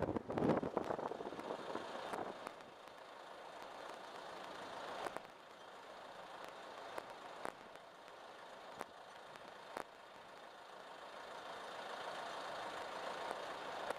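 Wind buffeting the microphone for the first couple of seconds, then a steady rush of rough sea and wind as waves break over the sea wall, swelling a little near the end, with a few faint clicks.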